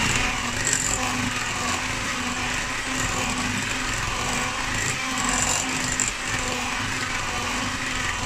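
Electric hand mixer running steadily at an even pitch, its beaters churning a thick, lumpy chestnut cake batter in a glass bowl.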